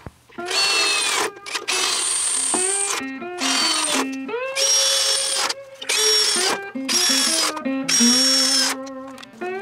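Cordless drill boring holes in sheet steel in about seven short trigger pulls, its motor whine rising and levelling off each time, with blues guitar music playing underneath.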